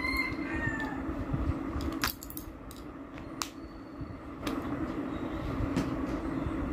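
Steady low hum of room noise with a few sharp clicks and taps scattered through it, like handling of paper and pen. A brief high chirp sounds at the very start.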